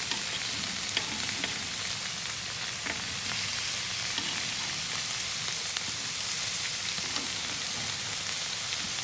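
Marinated chicken pieces sizzling on a hot grill grate: a steady hiss with scattered small crackling pops.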